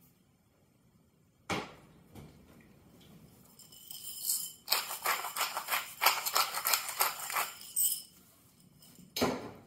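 Hand-twisted pepper mill grinding black peppercorns: a rapid gritty clicking that runs for about three seconds. A knock about a second and a half in and another near the end.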